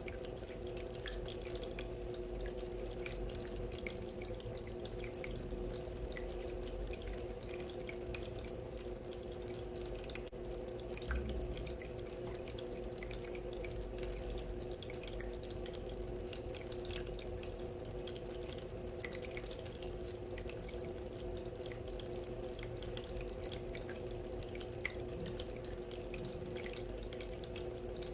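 Small water fountain trickling and dripping steadily, with a steady hum underneath and a brief knock about eleven seconds in.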